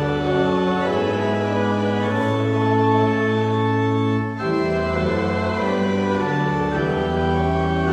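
Church organ playing slow, sustained chords, with a short break between phrases about four and a half seconds in.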